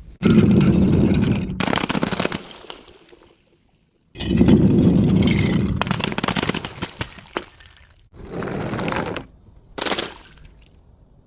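A bottle being crushed: four bursts of dense crackling and crunching, the first two lasting a few seconds each, the last two short, with a brief silence between the first and second.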